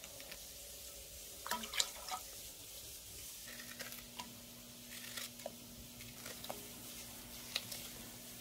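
Chunks of green onion dropped into a stainless-steel pot of broth: scattered small plops and splashes, the loudest a little under two seconds in. A faint steady hum comes in about three and a half seconds in.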